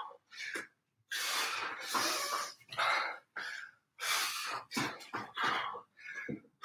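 A man breathing hard through his mouth while exercising: a run of forceful, irregular breaths, two of them long exhalations of about a second or more.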